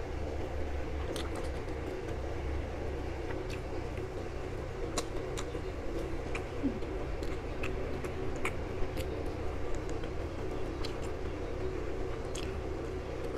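Small, scattered clicks and crackles of boiled-egg shell being picked off with the fingers, over a steady low background hum.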